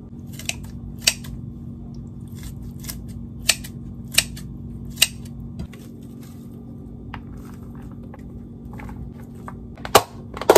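Kitchen scissors snipping through raw squid: a series of sharp, separate snips in the first half. Near the end, a few louder sharp clicks as the snap-lock lids of plastic food-storage containers are pressed shut.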